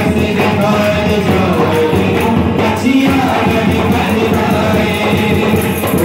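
Live Punjabi gospel song: a man and a group of women singing together over a harmonium and two hand-played barrel drums, at a steady beat.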